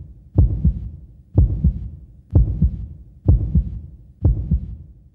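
Heartbeat sound: a pair of low thumps, the first louder, repeating steadily about once a second.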